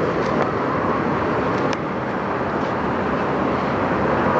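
Steady running noise of a semi truck's diesel engine idling, with a few faint clicks.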